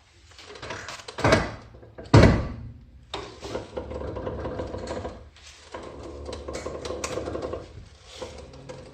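Front wheel of a Mercedes W203 being turned by hand while hanging free: the front strut's top mount bearing creaks and grinds in two long stretches, after two loud thumps about a second and two seconds in. The creak is the sign of a worn top mount with a torn rubber bushing.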